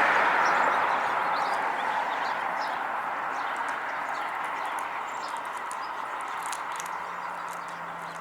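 Small birds chirping over a broad rushing noise that fades away steadily.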